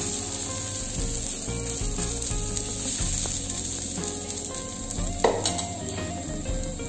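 Coarse lentil adai batter sizzling on a hot iron tawa while a steel ladle spreads it into a round, with a sharp knock about five seconds in.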